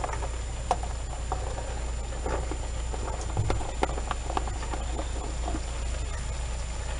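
Raw potato sticks tipped from a plastic bag into a metal pot of chicken and vegetables: scattered, irregular light clicks and taps as the strips drop onto one another and against the pot, over a steady low hum.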